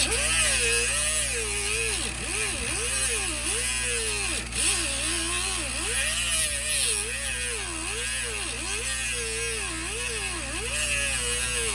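Power cutting tool cutting into a rusted nut, its motor pitch dipping and recovering about once a second as it is pressed into the metal, over a steady low hum.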